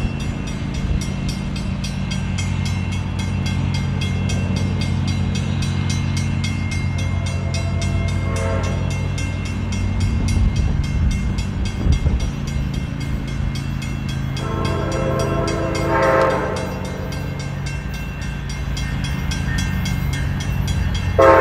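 Amtrak Downeaster's GE P42DC diesel locomotive approaching and sounding its air horn chord: a faint blast about eight seconds in, a long louder blast at about fifteen seconds, and a short sharp blast near the end. Under it runs a steady low hum.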